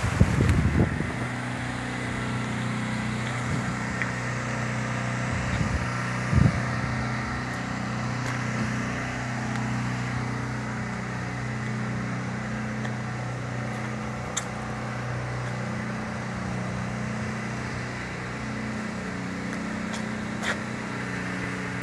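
An engine running steadily at an even speed, with a brief knock about six seconds in.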